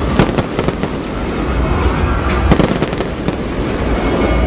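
Aerial fireworks shells bursting in a display, with sharp bangs and crackle over a continuous low rumble and a quick cluster of bangs about two and a half seconds in. Music plays underneath.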